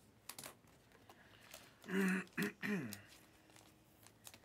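A stack of Panini Mosaic basketball cards being flipped through by hand: soft clicks and slides of stiff card stock as each card is moved to the back. Near the middle comes a short wordless vocal sound, falling in pitch.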